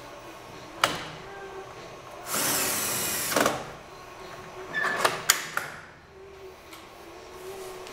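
A sharp click, then a cordless drill running for about a second. A few seconds later come several sharp knocks and clicks as the lectern's wooden flip-up shelf is swung up and its folding metal support brackets lock open.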